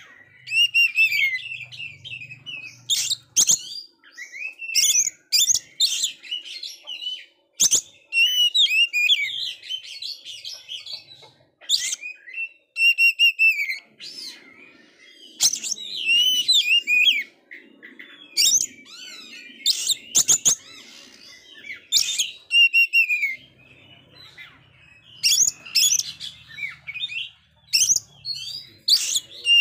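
Male Oriental magpie-robin singing almost without pause: varied whistled phrases and chirps, broken by short sharp notes.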